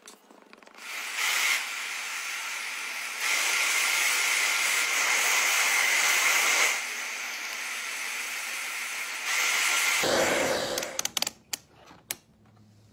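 A jet of air blowing onto a phone circuit board: a steady hiss with a faint whistle, louder from about 3 to 7 seconds in and again briefly near 9.5 s, then cutting off at about 10.5 s. A few light clicks follow.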